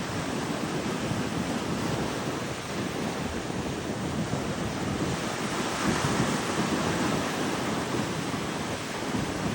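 Ocean surf washing on a beach, with wind buffeting the microphone; a wave swells louder about six seconds in.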